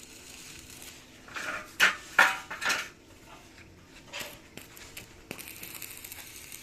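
Loose steel clanking, with a few loud metal knocks about two seconds in and another near four seconds. About five seconds in, the steady hiss of a stick-welding arc starts.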